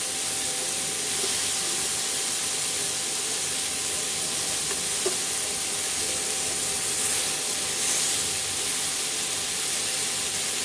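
Marinated paneer and capsicum skewers sizzling in hot desi ghee on a nonstick pan: a steady, even hiss, over a thin steady tone.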